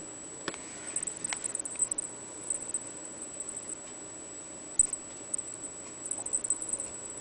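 Light scattered ticking, scratching and rustling as a kitten plays with a wand toy on a quilted blanket, with one sharper knock a little past the middle, over a steady hiss and a thin high whine.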